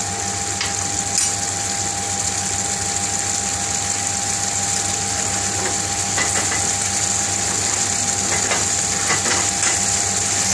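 Thick prawn curry gravy bubbling and sizzling in a metal pan, a steady hiss with a few small pops, over a low steady hum.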